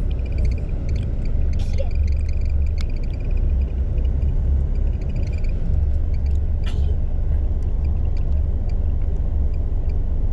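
Steady low rumble of a coach heard from inside the cabin as it moves slowly, with a few light clicks and squeaky rattles from the interior.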